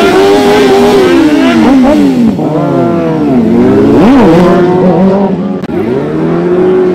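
Two sportbike engines revving hard together for rear-tire burnouts, their pitch swooping up and down repeatedly as the throttles are worked, dropping low twice and climbing back.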